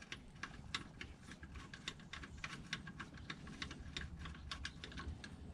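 Faint, irregular clicking, several clicks a second: a hand ratchet fitted with a long 5 mm Allen bit working loose an oil pan bolt.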